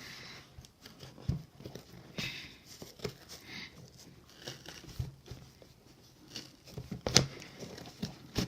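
Parcel packaging being handled and opened: crinkling and rustling with scattered taps and knocks, the sharpest knock about seven seconds in.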